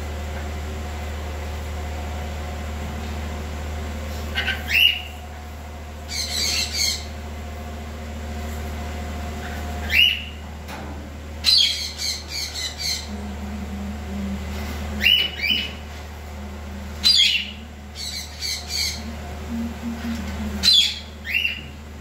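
Rainbow lorikeets squawking: short rising screeches and harsh, buzzy chatter in bursts every few seconds, over a steady low hum.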